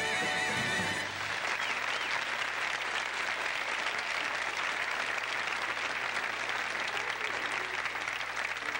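Audience applauding, with the band's last held chord ending about a second in.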